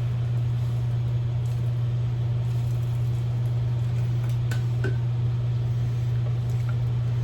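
A steady low hum, like a running appliance or fan, with a few faint light clicks about four and a half to five seconds in.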